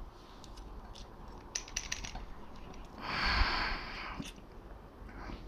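Lock picks and a wheel clamp's shutter lock being handled: a run of small, sharp metallic clicks and taps, then about three seconds in a louder hissing rush about a second long with a dull thump in it.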